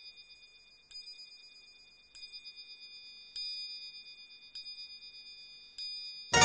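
A high, bell-like ding struck again and again at the same pitch, about once every second and a quarter, each one ringing out and fading before the next. Right at the end a louder, lower musical tone comes in.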